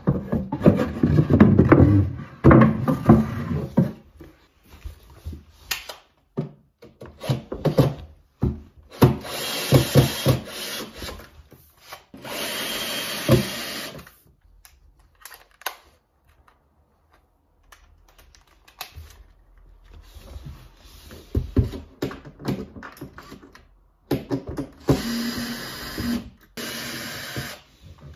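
Cordless drill-driver backing screws out of a fitted cabinet's top, running in short bursts of a second or two: two runs around the middle and two close together near the end. Before that, a few seconds of wood knocking and clattering against the cabinet as a wooden batten is moved.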